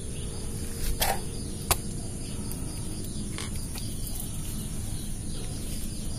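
Steady background noise with a thin, high, unbroken hiss, broken by a few sharp clicks: one about a second in, a sharper one just after, and a fainter one past the three-second mark.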